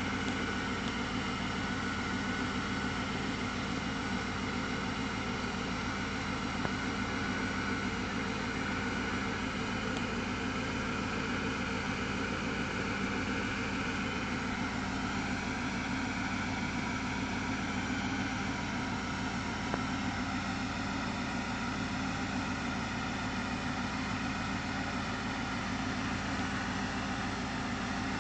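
BMW 740i E38's 4.4-litre V8 idling steadily.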